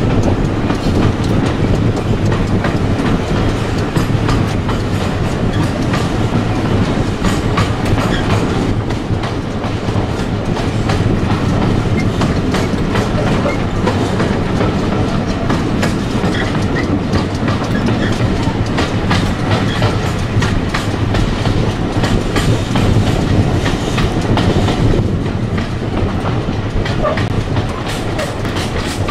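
A passenger train running along the line, heard from a carriage window: a steady rumble of wheels on rail with frequent clicks and rattles from the track and coaches.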